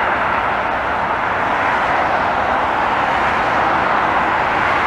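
Steady, loud roar of vehicle noise with no clear engine tone, holding level throughout.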